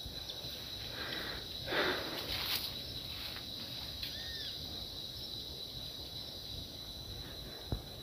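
Footsteps and rustling through dry leaves and brush, loudest about two seconds in, over a steady high-pitched insect trill.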